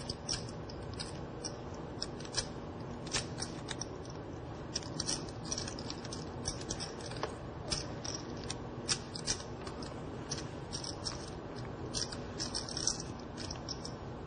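Poker chips clicking against each other as a player handles his stacks at the table: a run of light, irregular clicks, some in quick clusters, over a steady low room hum.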